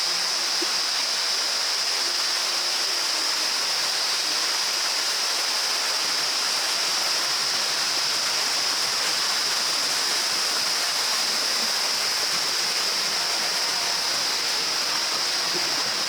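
A small mountain waterfall and stream rushing steadily, with a steady high-pitched insect drone over it.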